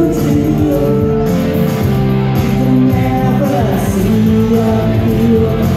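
Live rock band playing loudly, electric guitars and drums, heard from within the audience.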